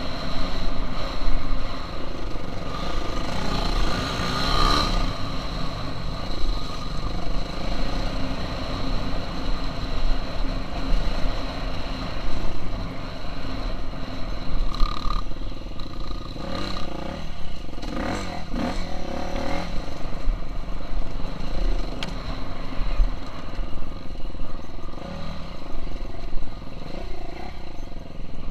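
KTM 350 SX-F motocross bike's single-cylinder four-stroke engine being ridden, its revs rising and falling again and again, with a low rumble of wind or buffeting on the microphone.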